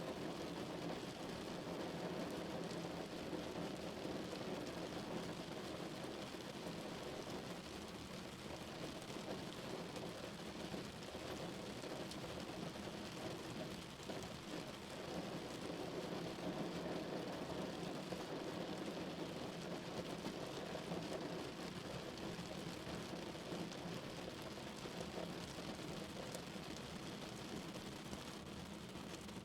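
Steady rain falling on a car's roof and windows, heard from inside the cabin.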